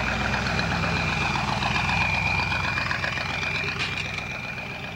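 Hot rod's engine idling with a steady rumble, then pulling away; the engine sound fades about four seconds in as the car moves off.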